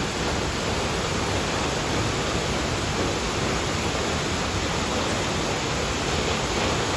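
Pulhapanzak waterfall's falling water, a steady dense rush of white noise with no pauses or changes in level.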